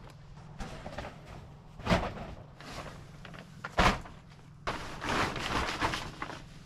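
Two sharp knocks about two seconds apart, then a plastic tarp rustling and crinkling for a second or so as it is pulled and handled.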